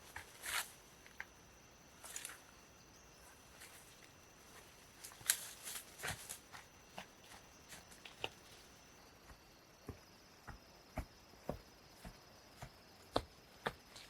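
Scattered rustles, snaps and knocks at irregular intervals, the strongest about five and thirteen seconds in, over a faint steady high-pitched hum.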